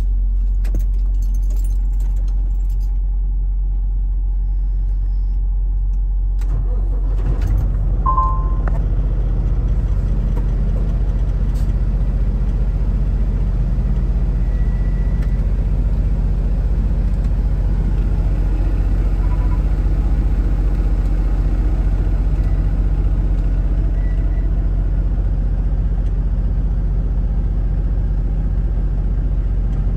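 Kenworth semi truck's diesel engine heard from inside the cab, a steady low drone that grows fuller and slightly louder about seven seconds in as the truck gets under way. A few brief high tones sound over it.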